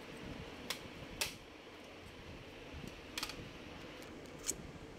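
Four light, sharp clicks of a screwdriver and the plastic underside of a Dell Latitude E6430 laptop being handled, spread over a few seconds, with faint hiss between them.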